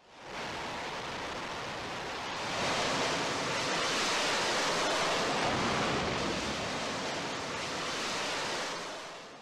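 Jet noise of an F/A-18 launching from an aircraft carrier's catapult: a steady rushing noise that fades in, grows louder about two and a half seconds in, and fades away at the end.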